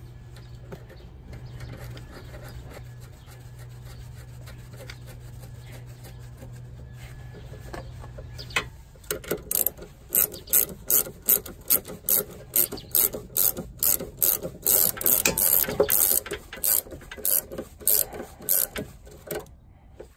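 Hand ratchet and socket clicking in repeated quick strokes, running the self-locking nut down onto the stabilizer link. The clicking starts about nine seconds in, after a steady low hum.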